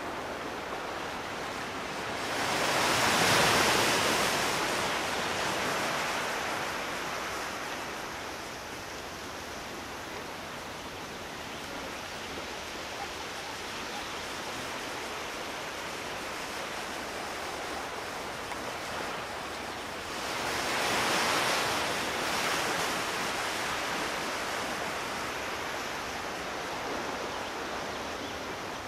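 Ocean surf washing steadily against the shore. Two louder waves break, one a few seconds in and one about two-thirds of the way through.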